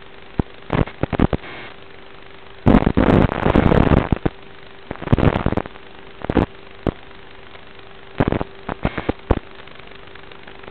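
Irregular bursts of crackling noise over a faint steady hum. There are short pops near the start, a longer, louder rush about three seconds in, and a cluster of sharp cracks near the end.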